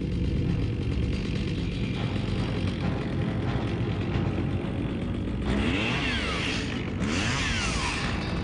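Chainsaw engine running steadily, then revved up and down several times in the second half.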